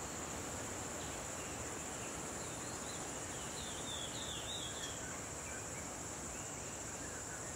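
Steady high-pitched chorus of insects, over a background hiss. A quick run of bird chirps comes about three to four seconds in, with a few fainter ones later.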